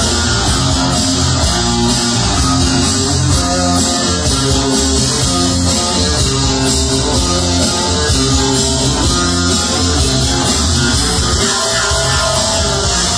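Loud dance music with a steady beat played over a party DJ sound system.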